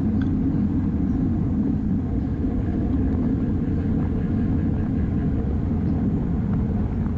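Steady low wind rumble on a bike-mounted action camera's microphone while riding at race speed.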